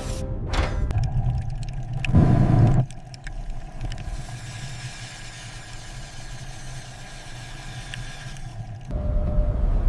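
A low mechanical rumble, with a loud burst lasting under a second about two seconds in, then a quieter hiss before the low rumble comes back near the end.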